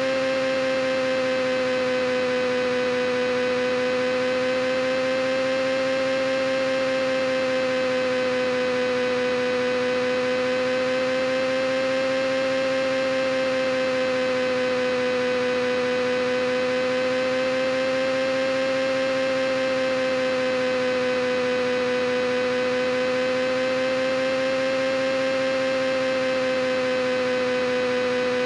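A steady, unbroken hum: one pitched tone with many overtones that wavers slightly and slowly in pitch, about every six seconds, played as a sleep sound.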